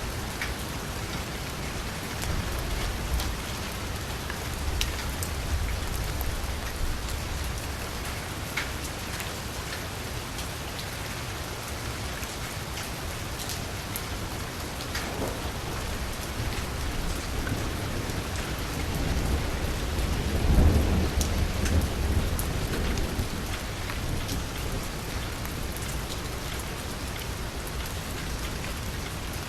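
Steady rain falling on a street, with scattered sharper drips. About two-thirds of the way through, a low rumble swells up, becomes the loudest sound, and fades over a few seconds.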